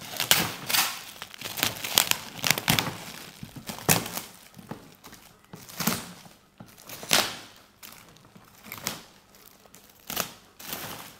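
Packaging being crumpled and torn open by hand as a gift is unwrapped, in irregular rustling bursts with short pauses.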